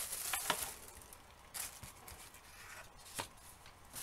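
Hands handling small objects on a wooden desk: a short rustle near the start, then a few light separate taps and clicks as the plastic dashcam is picked up.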